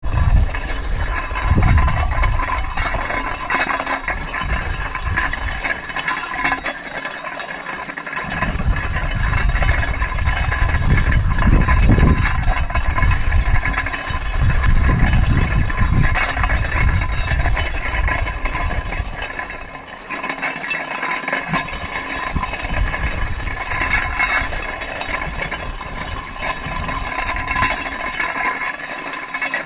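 Metal sled loaded with a 25 lb weight plate dragging and rattling over a gravel-and-sand road, with a low rumble that comes and goes.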